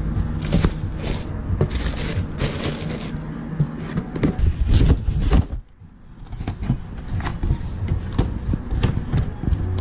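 Tissue paper rustling and cardboard boxes scraping and knocking as a sneaker is packed into its shoebox and the shoebox is handled with a mailing box, with a short lull a little past the middle.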